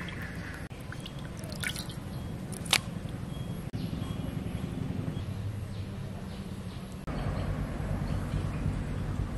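Wet dripping and squishing of fresh pabda fish being dropped into a woven bamboo basket, with a few sharp slaps, the loudest about three seconds in.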